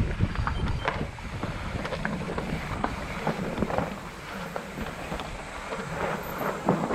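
Wind buffeting the microphone as a low, steady rumble, with many scattered light clicks and knocks throughout.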